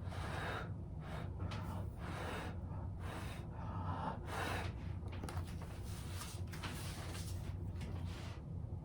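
A person blowing short, breathy puffs of air, about two a second, across wet acrylic paint on a canvas to push it outward in a Dutch pour. A steady low hum runs underneath.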